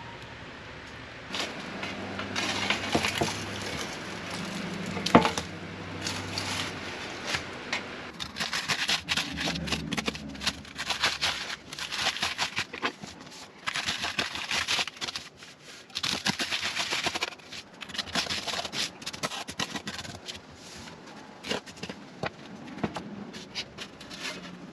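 Crackling and scraping of crisp baked puff pastry being cut and handled, with many short sharp clicks. A low hum runs for a few seconds near the start.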